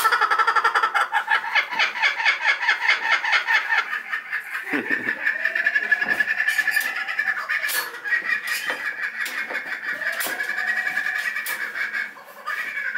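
Laughing kookaburra calling: a loud, fast run of laughing notes for the first few seconds, tailing off into softer rolling chuckles that fade near the end.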